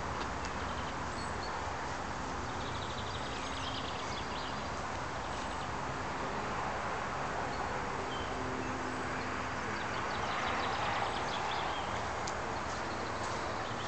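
Kawasaki KX85 single-cylinder two-stroke engine running steadily with a dinging rattle of piston slap: the piston is worn too small for its cylinder.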